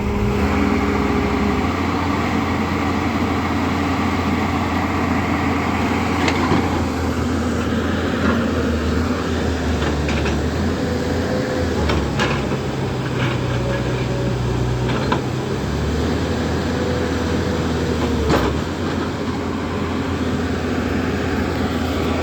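Excavator's diesel engine running steadily, its note shifting in level every few seconds as the hydraulics take load, with a few sharp knocks.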